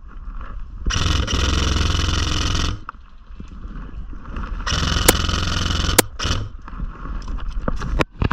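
Airsoft rifle firing two long full-auto bursts, each starting and stopping abruptly as the trigger is pulled and released, with a fast, even mechanical rattle, and a couple of sharp clicks in the second burst.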